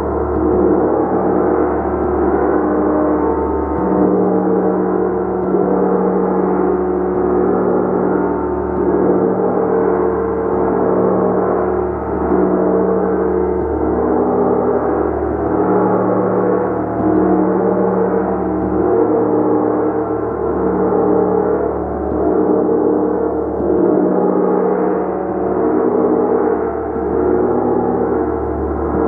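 A gong played continuously: a dense, steady wash of many overlapping ringing tones that swells and eases every couple of seconds.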